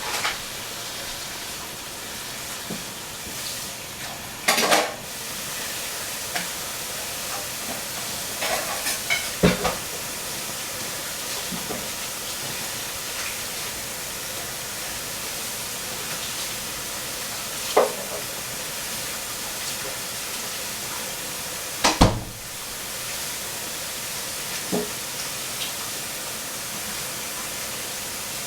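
Food sizzling steadily in hot oil on the stove, with a few short knocks and clinks of utensils against the pan or board, the loudest a little past two-thirds of the way through.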